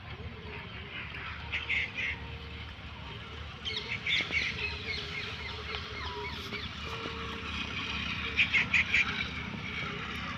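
Animal calls in three short bursts: about two seconds in, about four seconds in, and the loudest near the end, over a steady low background hum.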